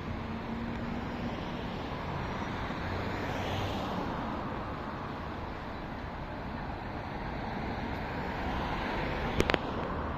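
Steady hum of distant road traffic, swelling slightly a few seconds in, with two quick sharp clicks near the end.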